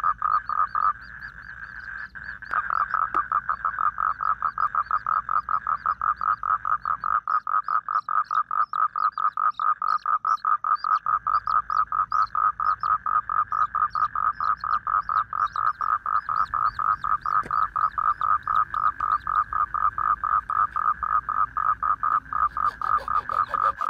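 A frog calling in a fast, even run of croaks, about four to five a second, with a short lull about a second in. Faint high peeps, likely from the chick, come over it in the middle.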